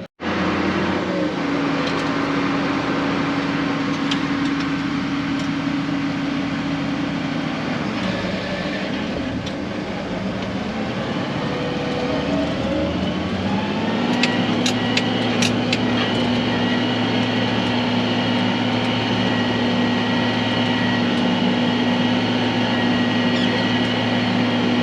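Case 9240 tractor's 8.3 L Cummins diesel running steadily under load, pulling a big square baler through heavy grass. The engine note wavers about eight seconds in, then settles at a slightly lower steady pitch from about fourteen seconds, with a few sharp clicks just after.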